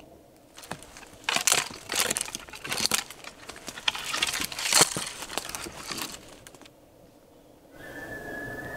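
A small tree and dead brush being raked to imitate a bull elk thrashing its antlers: an irregular run of loud crackling, snapping and scraping of branches that stops about a second before the end. Near the end an elk bugle begins, a long high whistle that holds.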